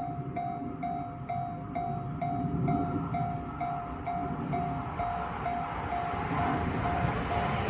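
Japanese level-crossing warning alarm ringing in an even beat about twice a second, while an approaching E231-series commuter train's rumble grows steadily louder underneath.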